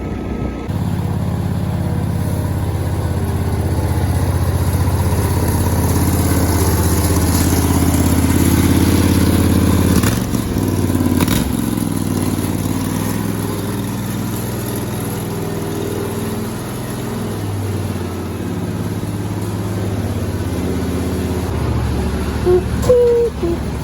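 Riding lawn mower's small engine running hard at speed, its pitch stepping up and down several times as the throttle and load change, with a short knock about halfway through.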